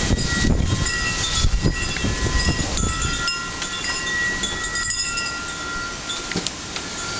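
Strong storm wind from the remnants of a hurricane gusting and buffeting the microphone, heaviest for the first three seconds and then easing off. Thin high steady tones come and go through it.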